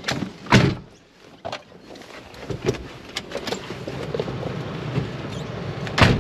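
Two heavy thumps, one about half a second in and one near the end, with a lighter knock between them over a low background rumble.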